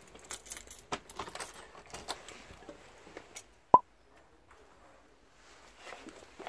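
A bunch of keys jangling and clicking in a front-door lock as the key is turned and the door is opened. Then comes one sharp, loud metallic clack a little under four seconds in.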